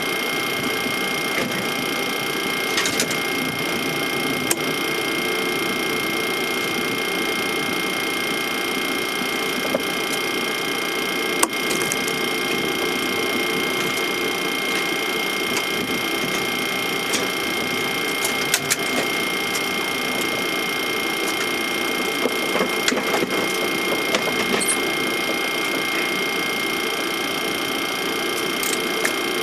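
Steady airliner cockpit noise while taxiing: an even hiss of air and fans with several steady whining tones from the idling jet engines and systems, and a few faint clicks.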